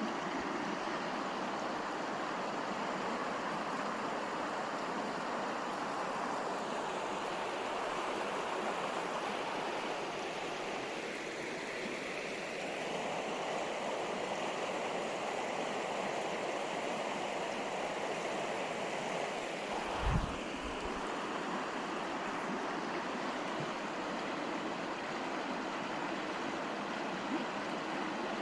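River water flowing steadily, an even rushing hiss. About two-thirds of the way through there is one brief low thump.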